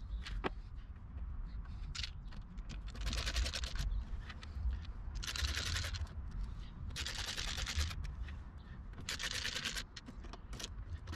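Screwdriver worked against a blue plastic hook-up socket, making four short bursts of fast, rasping clicks about two seconds apart, over a steady low rumble.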